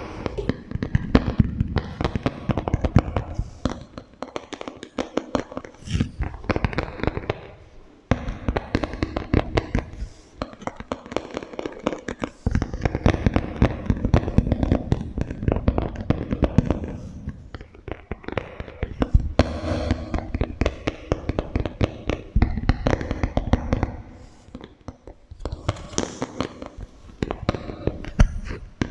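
Rapid, dense tapping and clicking on small hand-held objects, passed through a strong echo effect, in runs broken by short pauses.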